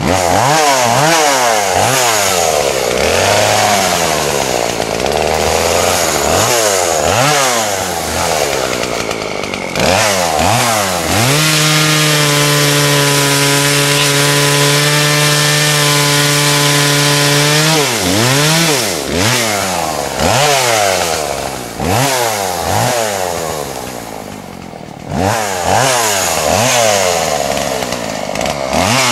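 Chainsaw sawing cedar, its engine revving up and down again and again. Near the middle it holds a steady high speed for about six seconds, then drops and resumes the rising and falling revs.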